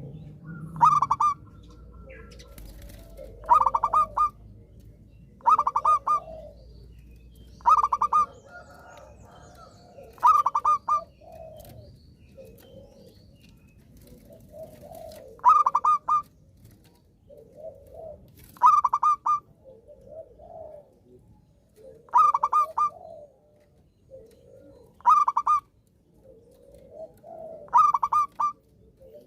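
Zebra dove (perkutut) singing its staccato cooing song: a short, rapidly pulsed phrase repeated about every two to three seconds, with softer, lower coos in between.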